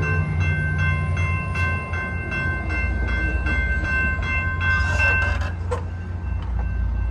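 A locomotive's five-chime air horn sounds one long blast that stops about five and a half seconds in. Under it, the passing train rumbles low, and a bell rings steadily about two and a half times a second.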